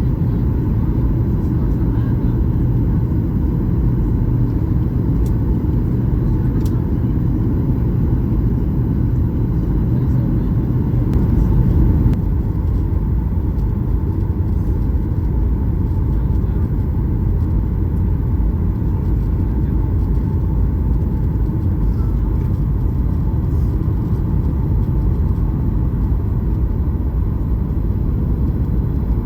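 Boeing 737-800 cabin noise: a steady low rumble of engines and air heard from inside the passenger cabin, swelling briefly about eleven seconds in.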